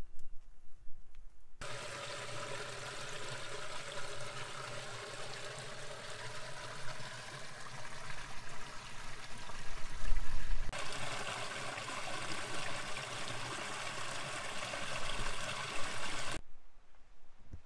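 A small creek trickling and splashing over granite boulders. It starts about a second and a half in, changes suddenly partway through, and stops abruptly near the end. A brief low rumble comes about ten seconds in.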